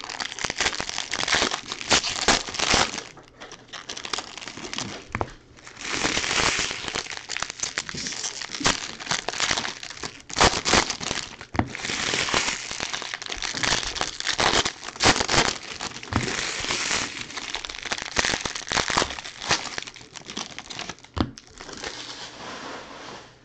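Foil wrappers of Bowman baseball jumbo card packs crinkling as they are torn open and crumpled by hand, in irregular bursts of crackling with a short lull a few seconds in.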